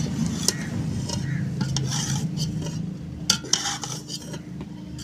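Long steel spoon stirring and scraping dry, ghee-roasted crumbs of buffalo colostrum (sukhi bohli) around an aluminium pot, with scattered sharp clicks of metal on the pot.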